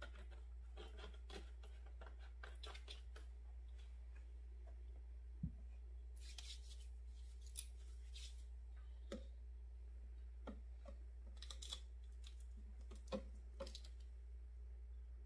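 Scattered light clicks, taps and rustles of plastic and glass oil bottles being handled and their caps worked, with one low knock about five seconds in, over a steady low hum.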